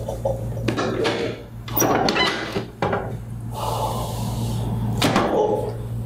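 Drop sections of a chiropractic drop table clunking down under hand thrusts on a patient's back: several sharp knocks a second or so apart, with a pause before the last one.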